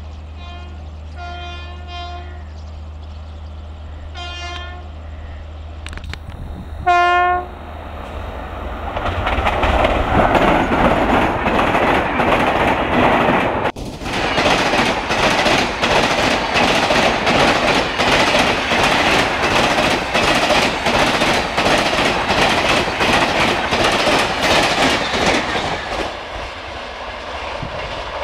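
Indian Railways WAP-7 electric locomotive sounding its horn in several short toots as it approaches, then one loud blast that drops in pitch as it reaches the camera. The Rajdhani Express coaches then pass at high speed with a rapid clickety-clack of wheels over rail joints, easing off near the end as the train moves away.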